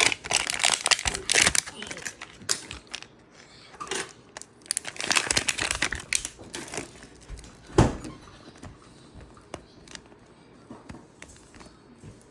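Wrapping on a Mini Brands capsule ball crinkling and tearing as it is peeled off, in irregular bursts, with one sharp knock about eight seconds in.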